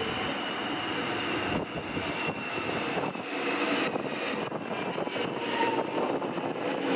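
Alstom X'trapolis electric train arriving and slowing at the platform, its traction motors whining in a slowly falling pitch over the rumble of the wheels. It grows louder as the carriages draw alongside.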